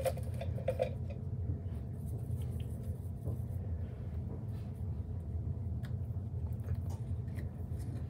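PVC primer can shaken with its dauber inside, the dauber rattling against the can and stopping about a second in; then faint scattered ticks over a steady low hum.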